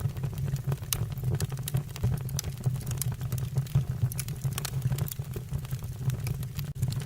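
Wood fire burning in a fireplace, with irregular sharp crackles and snaps from the logs over a steady low rumble of the flames.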